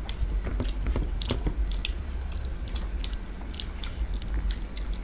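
Two people eating rice by hand: chewing and mouth sounds, with irregular scattered clicks and smacks from lips and from fingers working the food on plastic plates, over a steady low hum.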